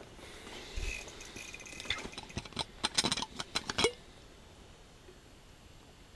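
Ice chips and slush rattling and scraping as they are cleared out of an ice-fishing hole: a quick run of clicks and scrapes that stops about four seconds in.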